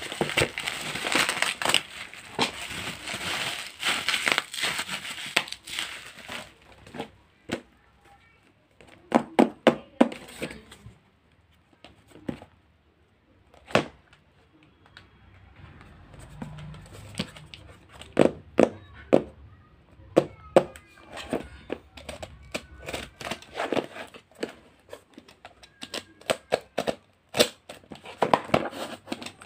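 Plastic bubble wrap crinkling as it is pulled off a small cardboard box for about the first six seconds, then scattered knocks and clicks of the cardboard box being handled and set on a table, with more crinkling and clicks near the end.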